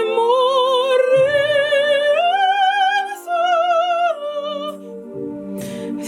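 A woman singing in a classical, operatic style with wide vibrato, holding long notes that climb step by step over a backing accompaniment. The voice breaks off about four seconds in while the accompaniment continues.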